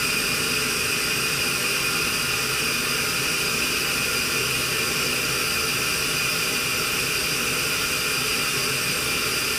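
Steady, even hiss, strongest in the upper range, that holds unchanged throughout.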